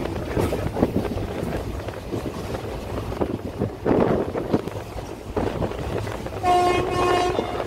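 Passenger train running along the track, heard from aboard: a steady rumble with irregular wheel clacks. Near the end the horn sounds one blast of about a second.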